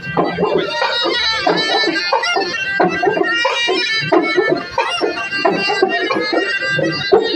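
Background music with melodic instruments over a steady percussion beat.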